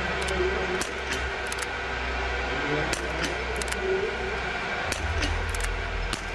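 Small-bore .22 biathlon rifles firing on the prone range: a series of sharp cracks at irregular intervals, from more than one shooter, over a steady background din.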